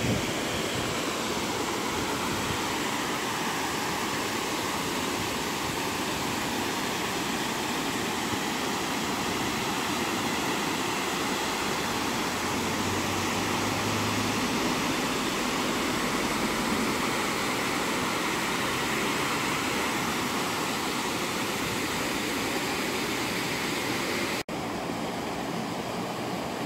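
River water rushing steadily over a low weir, a continuous even roar. Near the end it cuts out for an instant and resumes a little quieter.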